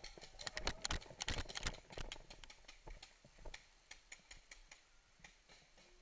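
Quick, irregular footsteps crunching on dry leaves and dirt. They are loudest and densest in the first two seconds, then thin out to lighter, scattered ticks.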